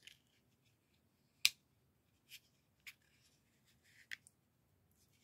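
Folding pocket knife's blade being flicked open and shut, its lock and pivot giving a series of sharp, separate clicks, the loudest about a second and a half in.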